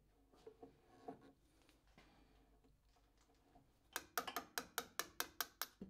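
Keyway broach in an aluminium drive wheel on an arbor press: a few faint clicks, then a quick run of about ten sharp metallic clicks, about five a second, in the last two seconds.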